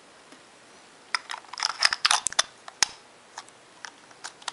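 Plastic clicks and snaps from a 110 pocket camera's film door being shut and latched: a quick cluster of sharp clicks with a short scrape about a second in, then a few lighter ticks.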